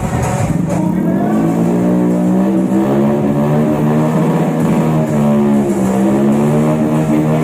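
Vehicle engine with a loud aftermarket exhaust held at raised revs while standing still, its pitch staying fairly steady with a couple of brief dips.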